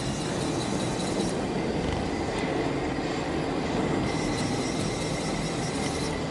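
Steady mechanical running noise of a CNC panel bender in a sheet-metal workshop, with a faint steady high whine coming in about two seconds in.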